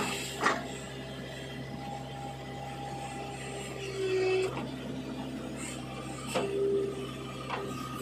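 JCB 3DX backhoe loader's diesel engine running steadily while its hydraulics whine as the bucket digs into soil. The whine swells louder twice as the arm works under load. A few sharp knocks come from the bucket.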